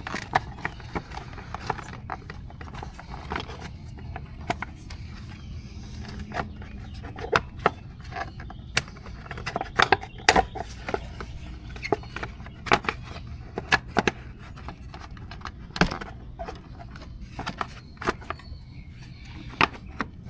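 Irregular clicks, knocks and light scrapes of a plastic body cover and its bolts being handled and fitted into place, over a steady low hum.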